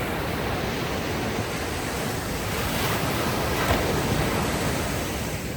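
Ocean surf washing onto a beach: a steady rush of breaking waves that swells a little past the middle.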